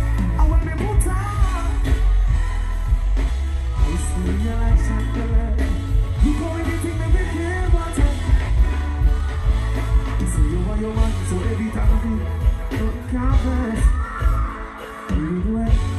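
Live dancehall band playing, with keyboards, bass guitar and drums under a male singer on a microphone; heavy bass and regular drum hits.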